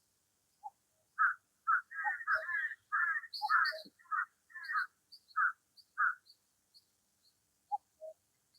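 Birds calling: a run of loud, repeated calls about twice a second from about a second in until about six seconds, with short high chirps over them, then a soft two-note call near the end.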